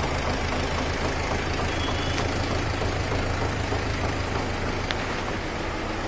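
Tractor engine running steadily while powering the hydraulic tipping of a loaded trolley; its low note thins out about four and a half seconds in.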